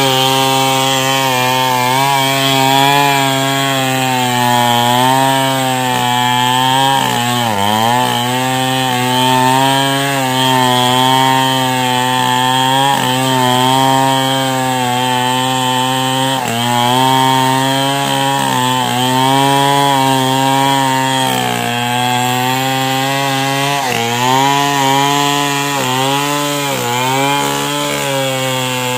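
Two-stroke chainsaw running at full throttle as it cuts into the trunk of a standing mindri tree. Its pitch dips briefly several times under the load of the cut and recovers.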